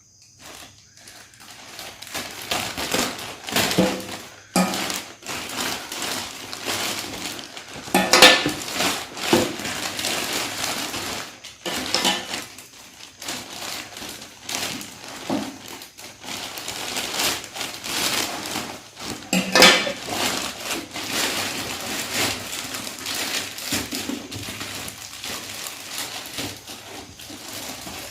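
A boxed facial steamer being unpacked by hand: packaging rustling and scraping, with many small clicks, clinks and knocks of hard parts. The loudest knocks come about eight seconds and about twenty seconds in.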